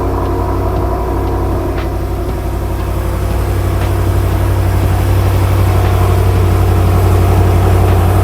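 BMW F10 M5's twin-turbo V8 idling steadily just after being started.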